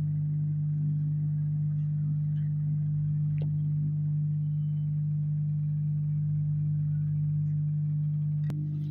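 Hot-air rework gun running steadily over an engine control circuit board to melt the solder and lift off a diode: a constant low hum with fainter higher tones over it. A single short click near the end.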